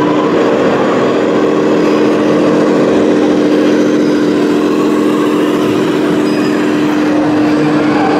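Steady engine-like hum from a large radio-controlled three-axle truck driving under load, holding one unchanging pitch over the busy background noise of an exhibition hall.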